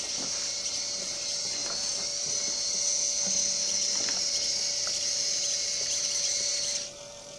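Small wheeled robot's electric drive motors whirring with a steady high hiss as it drives along the maze wall, cutting off suddenly near the end when it stops.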